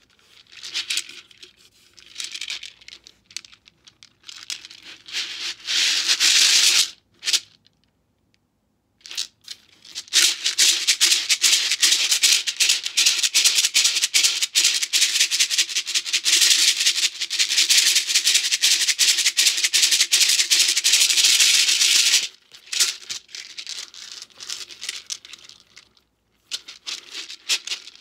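Beaded shekere made from a neck gourd being shaken and twisted, the net of beads rattling against the gourd shell. It starts in short shakes, stops for a couple of seconds, then rattles continuously for about twelve seconds before going over to lighter, scattered shakes.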